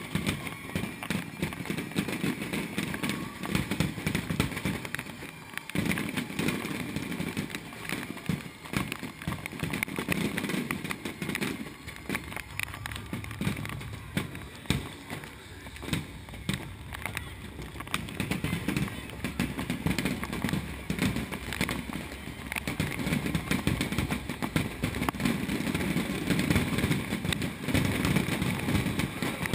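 Fireworks show: a rapid, continuous barrage of firework bursts, with crowd voices underneath.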